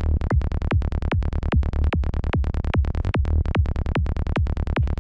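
Psytrance kick and bass loop from the Kick N Bass Gel software synth in D: a steady kick on every beat with short rolling bass notes between the kicks, the bass set to glide on an overlapping note.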